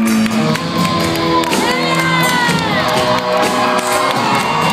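Live rock band playing through a concert PA, with a crowd cheering over the music.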